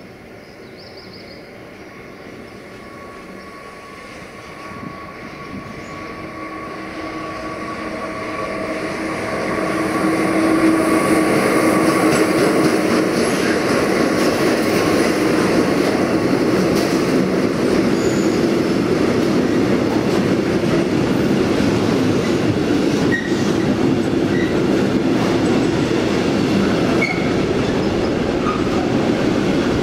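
Freight train approaching and passing close by: it grows louder over the first ten seconds or so, then the wagons run past in a steady loud rumble and clatter, with the wheels squealing in held tones.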